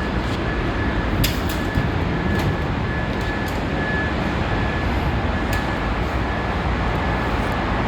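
Steady drone of job-site machinery with a low rumble, a faint constant high whine, and a few scattered clicks.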